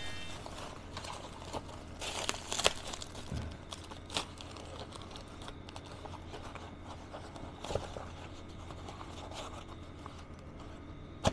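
Plastic bag crinkling and rustling in the hands, with a few sharp clicks and light knocks as a plastic remote controller is handled and set into a hard carry case.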